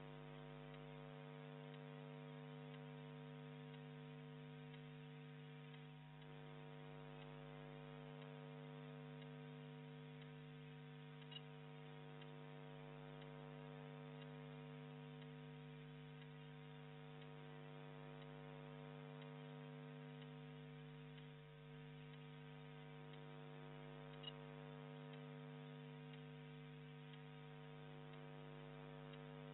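Near silence apart from a steady electrical hum, with two faint ticks, one near the middle and one later on.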